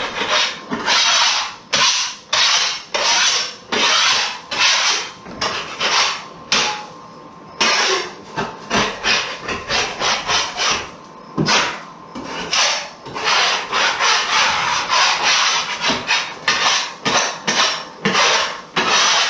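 Metal drywall knife scraping along the seams of a drywall patch, clearing loose paper and debris before mudding, in quick rasping strokes about two a second with a short pause about seven seconds in.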